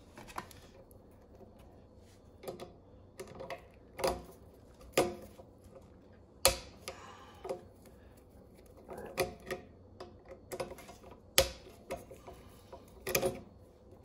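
Irregular clicks, taps and knocks of a screwdriver and wire ends being worked into the terminals of an air compressor's pressure switch, about a dozen sharp handling sounds with gaps between them.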